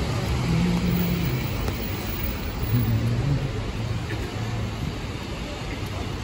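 Steady city street noise in the rain: a low traffic hum with a hiss over the wet pavement.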